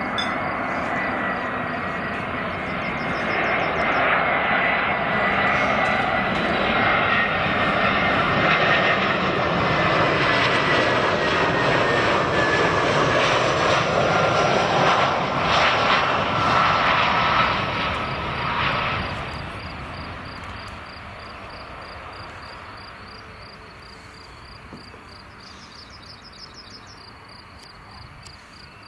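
Airbus A319 jet airliner passing low on final approach: the engine roar builds, holds loud for over ten seconds and then fades away, with a high fan whine that slides slowly down in pitch as the plane goes by.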